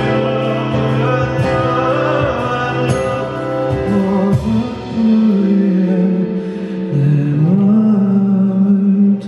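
Live acoustic ballad: a male voice holds long, drawn-out notes over acoustic guitar, stepping up in pitch partway through.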